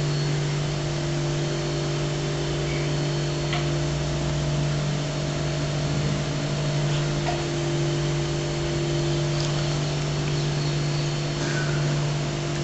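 A steady low hum made of a few even tones, like a running motor or electrical hum, over faint hiss, with a few faint ticks.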